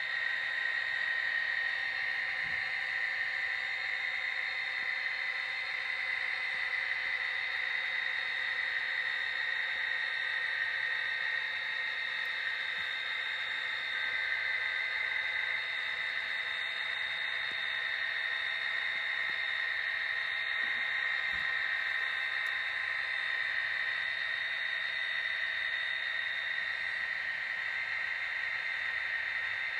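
Model diesel locomotive running steadily along a model railway with its train of covered hoppers: a steady high whine over an even hiss that does not change.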